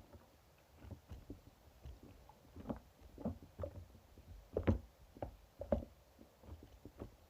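Opaque slime being squished and folded by hand, giving irregular small wet squelches and pops, a few each second, with a louder squelch a little past the middle.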